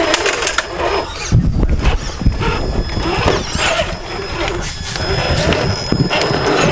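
A Traxxas TRX-4 RC crawler's electric motor and gears whine in uneven bursts, rising and falling in pitch, as the truck creeps over wooden planks, with scattered knocks and scrapes. A low rumble comes in about a second and a half in.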